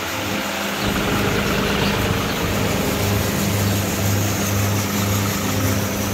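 John Deere 5310 tractor's three-cylinder diesel engine running steadily, powering a soybean thresher. A deep hum swells and fades about every half second under the steady engine note.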